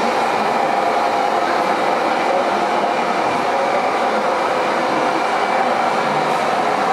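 Steady whirring of radio-controlled 1:14 scale model trucks' electric motors and gearboxes, with the hum of a busy indoor hall.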